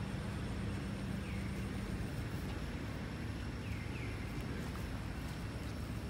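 Steady low outdoor rumble with a low hum that fades out about two seconds in, and a few faint, short, falling chirps.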